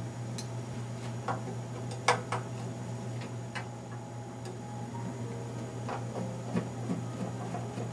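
Light, irregular metallic clicks and ticks of a Phillips screwdriver backing screws out of a metal rack chassis, the sharpest about two seconds in, over a steady low hum.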